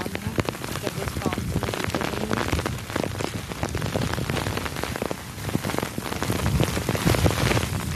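Heavy rain falling steadily, with many sharp drop hits close at hand; it grows a little louder near the end.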